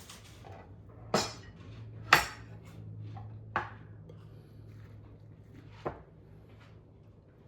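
Utensils and dishes clinking against a bowl four times as cut-up apple pieces go into it, the second knock the loudest, over a faint low steady hum.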